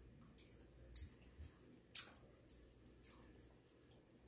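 Near silence broken by a few faint, sharp clicks of eating at the table, the sharpest about two seconds in.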